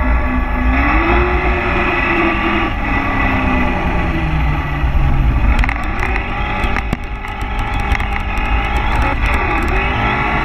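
On-board sound of a brushed 2WD Traxxas Slash RC truck, its stock Titan 550 brushed motor and gears whining and sliding up and down in pitch as the throttle comes on and off while it drifts. A heavy low rumble runs under the whine, and sharp clicks and ticks are scattered through the second half.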